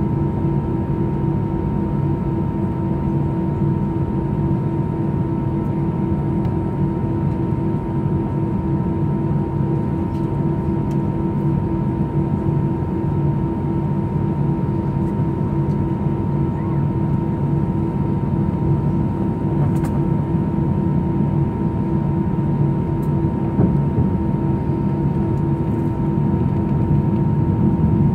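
Airbus A319 jet engines heard from inside the cabin while taxiing: a steady low hum and rumble with a steady whine over it, getting slightly louder near the end.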